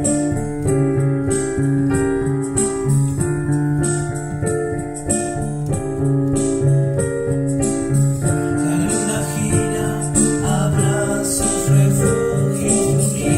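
Instrumental song intro on keyboard: an electric-piano sound plays held chords over a steady bass line, and a brighter hissing shimmer joins about eight seconds in.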